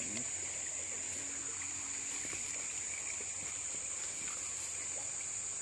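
Steady high-pitched insect chorus over the hiss of flowing river water.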